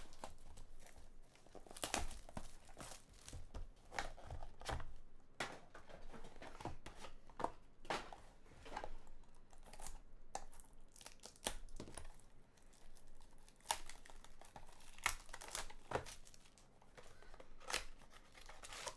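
Trading-card packaging being torn open and crinkled, with irregular rustles and snaps as the cards are handled.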